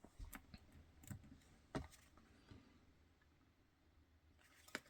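Near silence with a few faint clicks and taps of small hard parts being handled, and a sharper click near the end.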